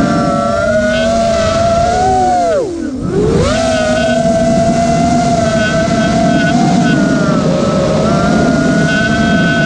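Eachine Wizard X220 racing quadcopter's brushless motors and propellers whining steadily, heard from the camera on board. About three seconds in the throttle is chopped: the whine drops steeply in pitch and level, then climbs back within about a second.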